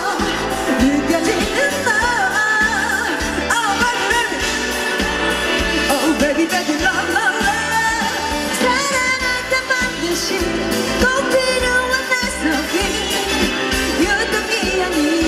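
A female vocalist singing a Korean pop song live into a handheld microphone over amplified accompaniment with a steady beat.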